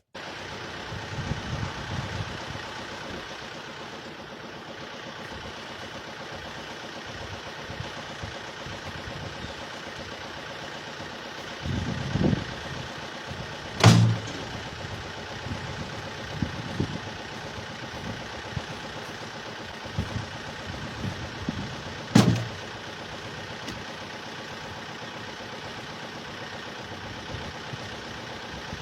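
An engine running steadily, with a few low thuds and two sharp knocks about eight seconds apart.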